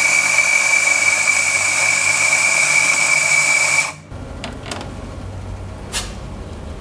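Coffee grinder grinding espresso beans, a steady motor noise with a high whine that cuts off about four seconds in. A quieter low hum follows, with a couple of sharp knocks.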